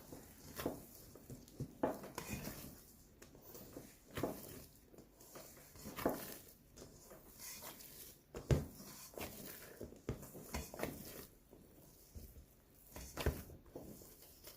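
Bread dough being mixed by hand in a bowl: soft irregular squishes and knocks, the loudest knock about eight and a half seconds in.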